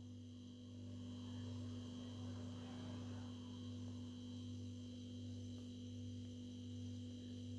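Faint steady low hum with a light hiss underneath: room tone.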